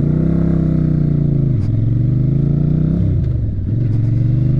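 Motorcycle engine accelerating through the gears: the revs climb, drop sharply at a gear change about one and a half seconds in, climb again, dip at another shift about three seconds in, then rise once more.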